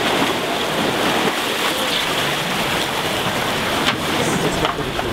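Pool water splashing and churning steadily around swimmers, with a couple of sharper splashes near the end.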